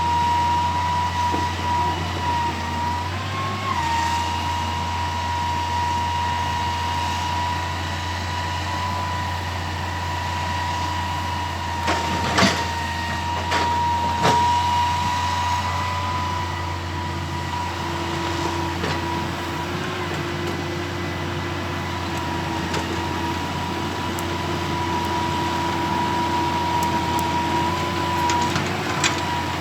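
Excavator running steadily, a low engine hum under a high, steady hydraulic whine, with two sharp knocks about twelve and fourteen seconds in.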